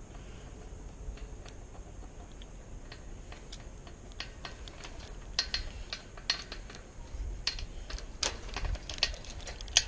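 Small sharp metal clicks from a Master combination padlock being worked by hand. They come sparsely at first, then quicker and louder over the last few seconds.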